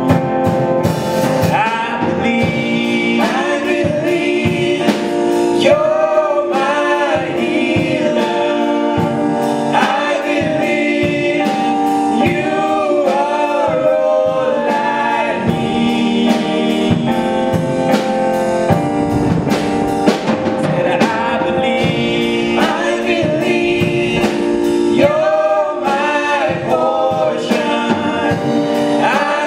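Three male singers singing a gospel worship song, backed by keyboard and drum kit with a steady beat.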